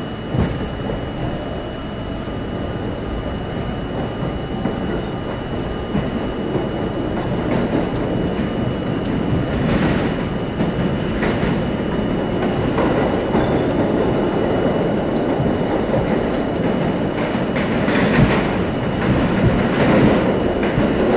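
New York City subway C train running through a tunnel, heard from inside the front car: a steady rumble of wheels on rail that grows louder over the stretch, with clicks as the wheels pass rail joints and a faint steady high whine.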